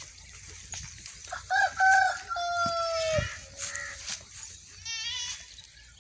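A rooster crowing once, about a second and a half in: a long call that falls slightly over its drawn-out last part. Near the end comes a short wavering bleat.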